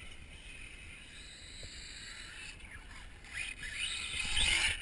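Engine of a 1/8-scale nitro off-road RC buggy, revving and easing off with a high, rising and falling whine. It is fainter at first and grows loudest near the end as the buggy comes close.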